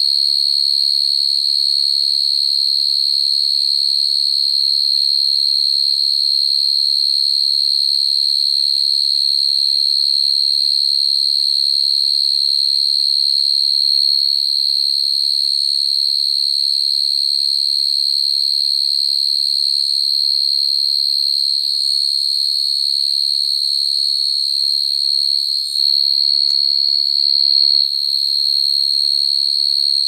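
Male crickets calling: a steady, unbroken high-pitched trill, the calling song that attracts females.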